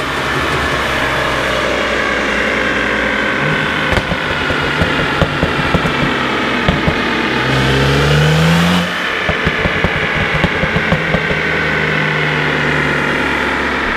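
BMW 335i's N54 twin-turbo inline-six, fitted with a catless downpipe, running under load on a chassis dyno. Its revs climb briefly about eight seconds in and then cut off suddenly, followed by a run of sharp pops and crackles from the exhaust.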